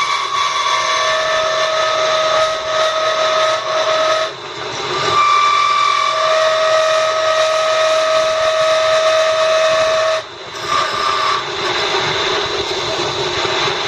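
Wood lathe spinning a thin spindle while a hand chisel cuts it: a steady whining hum with a high tone that drops away briefly twice, about four and ten seconds in.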